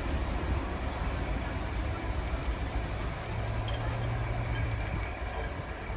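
VR Class Dr13 diesel locomotive and its train running away down the track: a low, steady rumble, with an engine hum that holds steady from about three to five seconds in.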